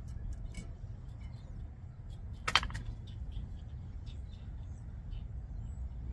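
Metal tools being handled: light clicks and clinks, with one sharp metallic clank about two and a half seconds in, over a low steady rumble.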